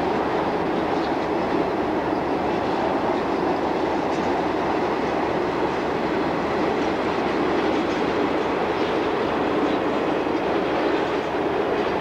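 A train rolling along the rails: a steady, even noise of wheels on track that holds the same level throughout.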